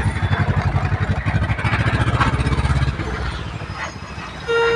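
Motor vehicle engine running with a rapid low pulsing, heard from inside a small goods vehicle's cab in city traffic; the rumble eases after about three seconds. A vehicle horn beeps once, briefly, near the end.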